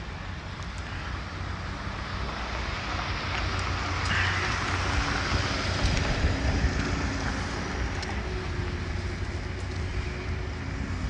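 Steady low engine rumble outdoors, with a few faint knocks.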